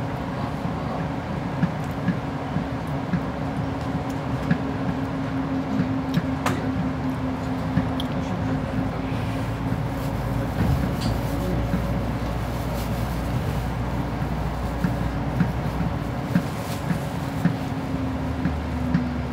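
Mercedes-Benz Citaro O530G articulated bus under way, heard from inside: a steady engine drone with a held hum, and scattered small rattles and clicks. The low rumble grows heavier for several seconds in the middle, and the hum drops slightly in pitch near the end.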